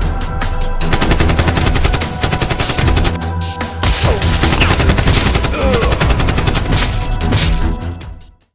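Rapid, dense automatic gunfire over background music, fading out near the end.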